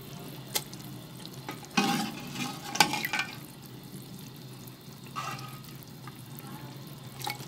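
Beef trotter pieces being dropped into hot oily masala in a cooking pot, with the masala frying and a few short knocks and clinks as the pieces go in.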